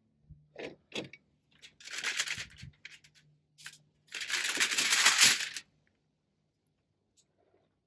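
Aluminium foil crinkling under hands rubbing seasoning into a whole catfish: a few light clicks, then rustling spells, the loudest and longest one stopping about two-thirds of the way through.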